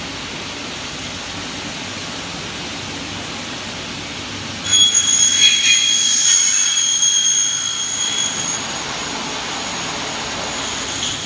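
Double-head aluminium cutting saw running with its 450 mm blades spinning, then cutting through an aluminium profile for about four seconds with a loud, high-pitched ringing screech before it settles back to steady running.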